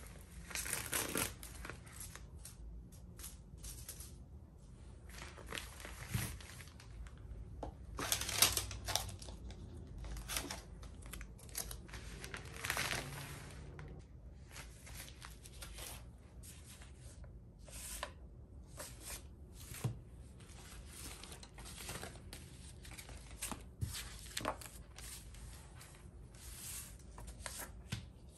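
Packing materials handled by hand: poly bubble mailers, paper and clear plastic sleeves rustling and crinkling, with tearing sounds and scattered small taps and clicks. Louder tearing comes about a second in, around eight seconds and around thirteen seconds.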